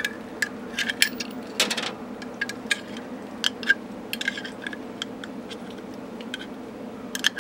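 Small sheet-metal knockout slugs from electrical boxes clicking and clinking as they are handled and set down on the steel door panel. The clicks are irregular and of varying loudness, over a steady low hum.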